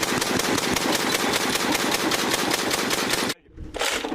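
Machine gun firing a long continuous burst, rapid even shots, which cuts off suddenly a little over three seconds in; a few scattered knocks follow.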